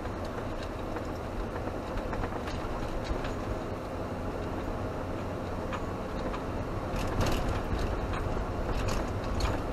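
Camper van cabin noise while driving slowly on a narrow mountain road: steady engine and tyre rumble, with scattered clicks and knocks from the cabin that come thicker from about two-thirds of the way in.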